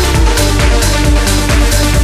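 Electronic dance music in a trance style, with a steady driving beat under held synth notes.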